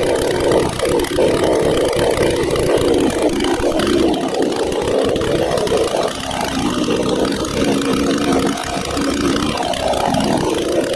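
Proyama gas chainsaw running steadily on an Alaskan chainsaw mill, cutting lengthwise through a pine log. The owner judges the chain to have been dull from the start, grinding powdery dust instead of throwing chips.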